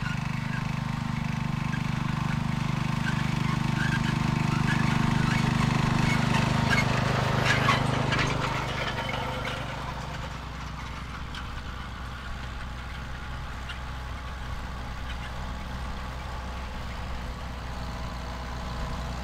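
Small tractor engines running steadily under load while plowing. The nearer engine grows louder, rattles around seven to eight seconds in, then falls away, leaving a quieter, steady engine drone.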